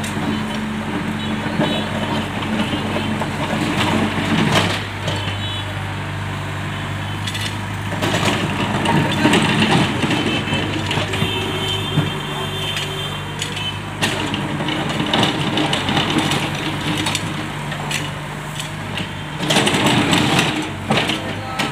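Caterpillar E70 tracked excavator's diesel engine running steadily, with several louder spells of the bucket scraping and dragging gravel across the road surface.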